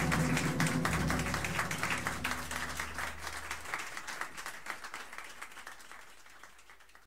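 Club audience applauding at the end of a tune, with the band's final low chord ringing under it for the first half. The applause then fades out steadily to near silence.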